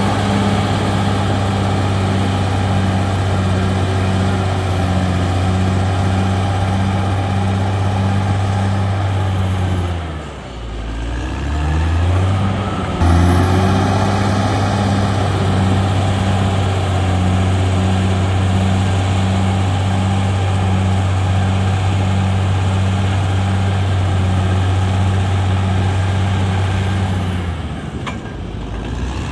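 Caterpillar D6R XL bulldozer's diesel engine running steadily. About ten seconds in the engine note drops and then climbs back up, and a few seconds later it settles into steady running again.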